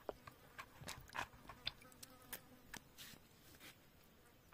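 Faint small splashes and irregular clicks of soaked dried cassava pieces being handled in water in a plastic basin, stopping about three and a half seconds in.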